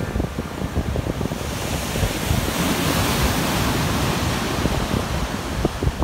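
Ocean surf: a wave breaking and its wash swelling to a loud hiss about two seconds in, then fading near the end, with wind buffeting the microphone.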